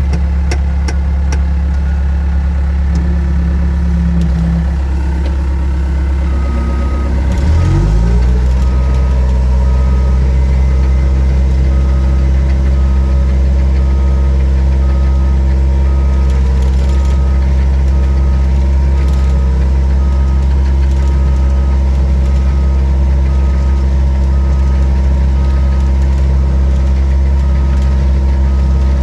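Case 430 skid steer's diesel engine running steadily; its speed dips and climbs back about 7 seconds in. From about then on, a short beep repeats roughly once a second: the back-up alarm as the machine reverses to sweep.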